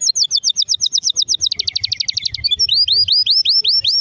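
A canary singing loudly in phrases of rapidly repeated high notes: an even series of about ten notes a second, switching about one and a half seconds in to a faster, denser trill, then near the end to a run of rising whistled notes.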